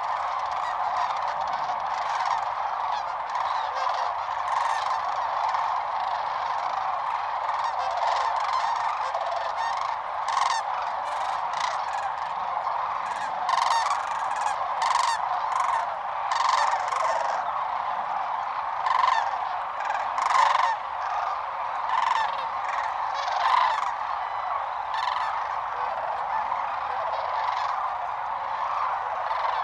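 A large flock of sandhill cranes calling: a dense, unbroken chorus of rolling calls, with closer, louder calls standing out over it through the middle stretch.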